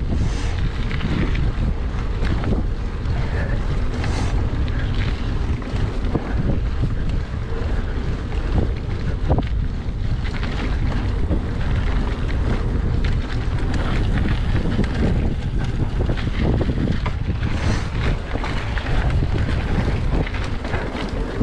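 Wind buffeting a GoPro Hero 8 Black's microphone while riding a mountain bike, a steady low rumble, with the tyres rolling over dirt and dry leaves and scattered small knocks and rattles from the bike over bumps.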